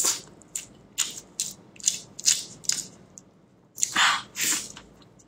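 Close-up wet chewing and lip-smacking on a mouthful of fatty, saucy meat: a string of short smacks a few tenths of a second apart, with two longer, louder wet sounds about four seconds in.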